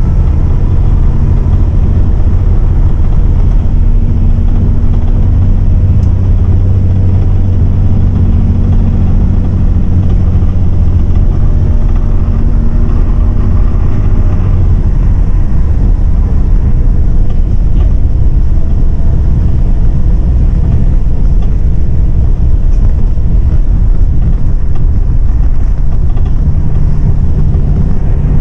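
MAN 18.350 bus's six-cylinder diesel engine running under way, heard from inside the passenger cabin over road and tyre noise. The engine's drone is strong at first, eases about halfway through, and a new, higher engine note comes in near the end.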